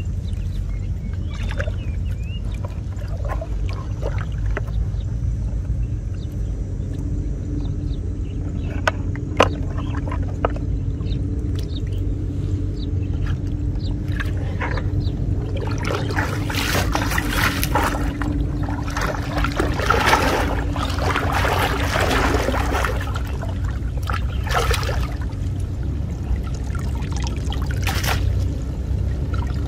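Water splashing and sloshing as a person wades in shallow floodwater and handles a mesh net fish trap, with scattered small splashes early on and a busier run of splashing in the middle.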